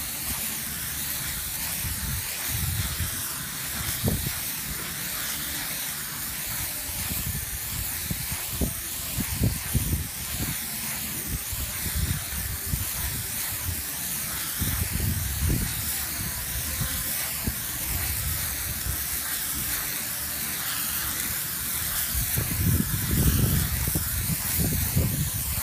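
Cav-Grip 3V adhesive hissing steadily from spray wands fed by pressurized cylinders, as it is sprayed onto a roof deck and membrane. Irregular low rumbles and thumps run under the hiss, strongest near the end.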